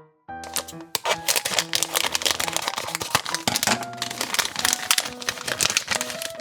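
Blind bag packaging crinkling in rapid crackles as it is handled and opened, starting about a second in.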